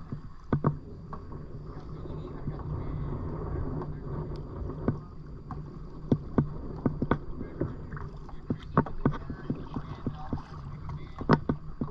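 Kayak paddling on calm water: paddle strokes with irregular sharp clicks and knocks over a steady low rumble.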